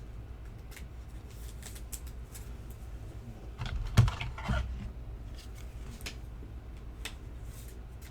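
Trading cards being handled on a table: scattered light ticks and clicks as cards are slid and set down, with a louder rustle and a sharp tap about four seconds in, over a steady low hum.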